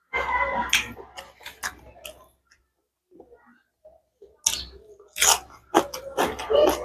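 A person chewing food close to the microphone, with crisp crunching. It comes in two bouts, the second, from about four and a half seconds in, louder than the first.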